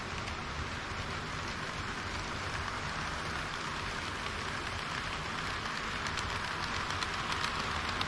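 HO-scale model train running on the layout track: a steady hiss of small metal wheels rolling on the rails, with a few light clicks near the end.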